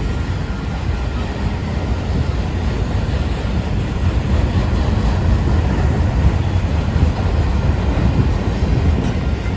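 BNSF freight train of autorack cars rolling past, a steady noise of wheels on rail that grows a little louder about four seconds in.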